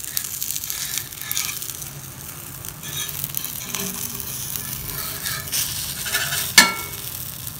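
Beaten egg mixture sizzling in hot oil as it is poured onto an iron tawa, with a wire whisk scraping the last of it out of a glass bowl. A single sharp clink near the end.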